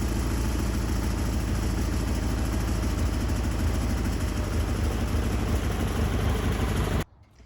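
Wood-Mizer LT40 portable sawmill's engine running steadily, stopping abruptly near the end.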